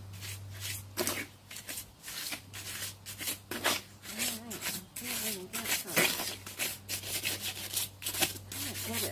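Gloved hands working cloth in a tub of wet concrete mix: a quick, irregular run of rubbing, scraping and wet strokes as the fabric soaks up the mix.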